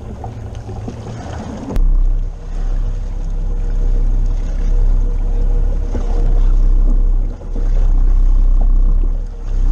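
Boat's outboard engine running with a steady low hum, after an abrupt change about two seconds in; before it, wind and water noise.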